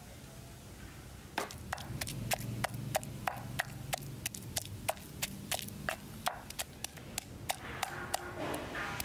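Wooden pestle pounding peeled shrimp in a stone mortar, a steady run of sharp knocks at about three to four a second, starting about a second and a half in.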